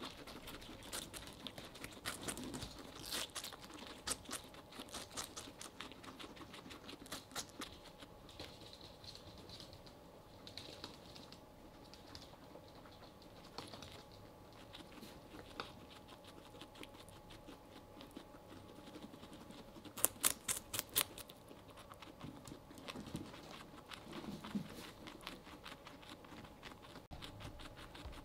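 Guinea pigs chewing watermelon: a steady stream of small, crisp, wet crunching clicks as their teeth work through the red flesh and rind, with a run of louder, closer bites about twenty seconds in.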